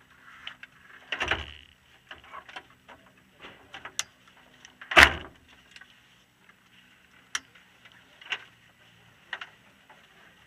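Knocks, clicks and clatter inside a caged race car's cabin as the driver fits his helmet and fastens the side window net. There are two loud thumps, about a second in and about five seconds in, over a faint low steady hum.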